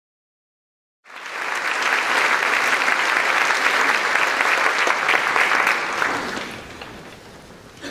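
Audience applauding: the clapping starts abruptly about a second in and dies away over the last couple of seconds.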